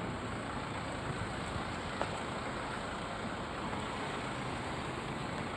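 Steady outdoor background noise, an even hiss and low rumble with no distinct events.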